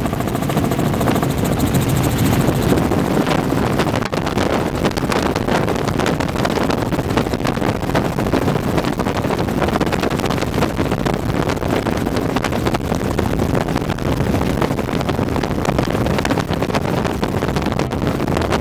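Helicopter engine and rotor running steadily, a loud even drone. About four seconds in the level dips briefly, and after that the noise is rougher and rushing, with more wind on the microphone.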